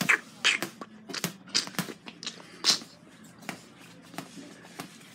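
A series of sharp, irregular taps and knocks, several in the first three seconds and fainter ones after.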